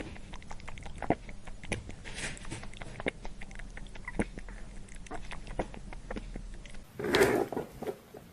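Rabbit sounds: many quick, irregular little clicks and taps, followed a little before the end by a louder, noisier burst.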